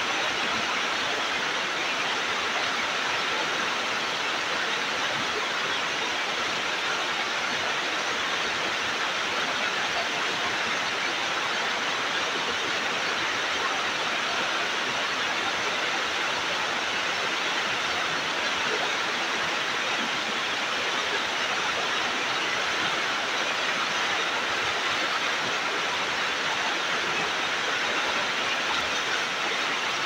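Waterfall pouring: a steady, unbroken rush of falling water, bright and hissing, with no change in level.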